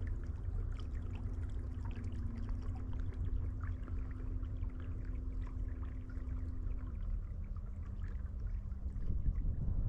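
Electric trolling motor on a kayak humming steadily, with water trickling and splashing along the hull over a low rumble. The hum drops slightly in pitch about seven seconds in.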